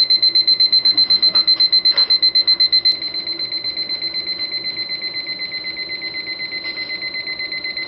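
Rhythm electronic alarm clock's alarm going off: a steady high electronic tone pulsed in rapid, even beeps. It gets somewhat quieter about three seconds in.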